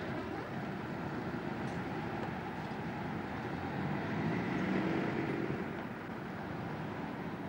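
Street traffic noise, a steady rumble of vehicles that swells about four to five seconds in as one passes close, then eases.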